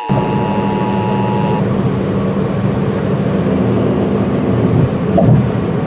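An Emergency Alert System two-tone attention signal sounds briefly and is cut off about a second and a half in. Under it, a loud steady rumbling noise with a low hum runs on.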